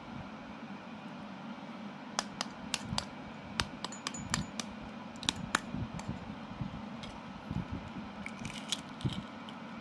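Knife blade tapping the shell of a boiled chicken egg, a dozen or so sharp clicks. Near the end comes the softer crackle of the cracked shell being peeled by hand.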